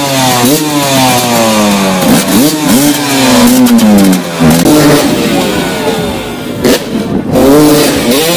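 Motocross bike engines being revved again and again, the pitch climbing and falling back with each throttle blip, several engines overlapping.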